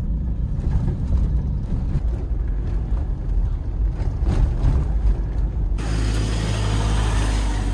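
Low, steady road and engine rumble inside a moving car's cabin. A little before the end it cuts suddenly to a steadier hiss over a low hum.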